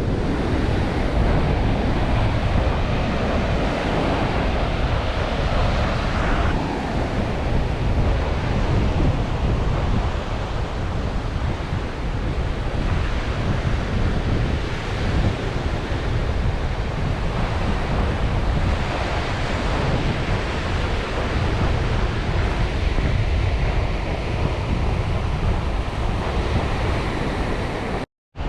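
Ocean surf washing over a reef and shore, with wind buffeting the microphone.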